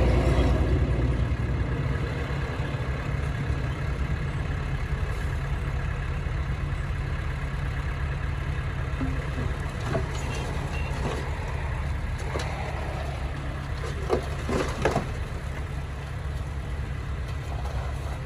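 Heavy diesel machinery engine running steadily at a low, even pitch, with a few short metallic knocks about halfway through and again near the three-quarter mark.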